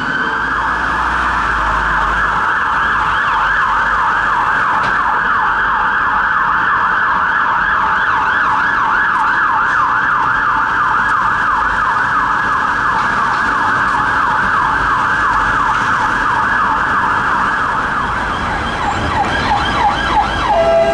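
Emergency vehicle siren on a fast yelp, its pitch rising and falling several times a second without a break. At the very end a lower, stepped two-tone siren takes over.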